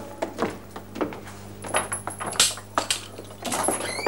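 Keys jangling and metal clinking as a padlock and chain on a wooden cell door are unlocked, heard as a string of sharp irregular clicks. A steady low hum runs underneath.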